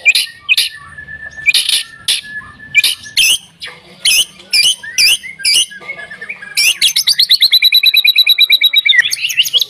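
White-rumped shama (murai batu) singing: loud, sharp whistled notes one after another, then about two-thirds of the way in a fast rattling trill of repeated notes, about ten a second, lasting a couple of seconds before the separate notes return.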